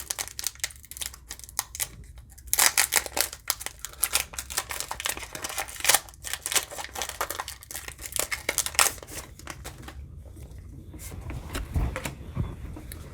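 Foil booster-pack wrapper crinkling and tearing as it is opened by hand, with irregular crackles and clicks in several clusters.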